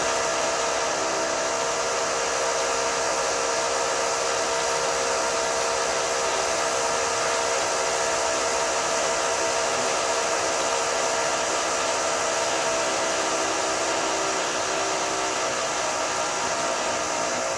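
High-pitched drill running continuously with a steady whine made of several held tones; some of the lower tones drop out about fifteen seconds in.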